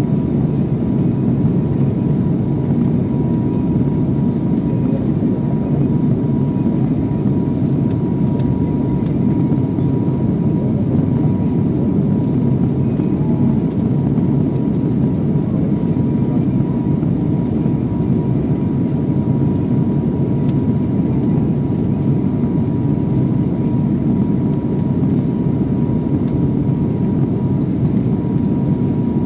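Steady cabin drone of a turboprop airliner in flight. A dense low rumble carries a faint constant whine, unchanging throughout.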